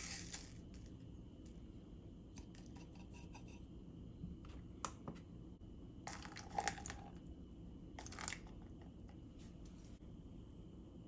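Faint kitchen handling sounds: a plastic cup on a digital scale knocked and tapped in small clicks, then water poured in, heard as short splashy bursts about six and eight seconds in.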